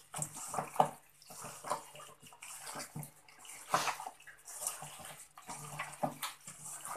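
Wet squelching and squishing of a hand kneading raw chicken livers in an oily salt-and-turmeric marinade in a stainless steel bowl, in irregular bursts.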